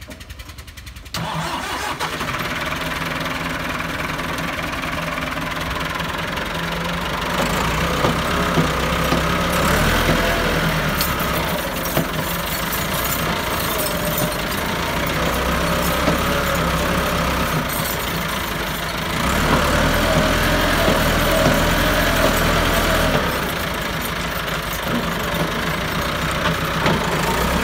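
Massey Ferguson 375 tractor's four-cylinder diesel engine running under heavy load as the tractor is driven to work its way out of a muddy ditch. The engine picks up about a second in, grows louder, is loudest for a few seconds past the middle, then eases.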